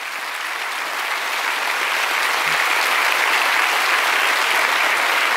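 Audience applauding, a dense steady clapping that slowly grows louder.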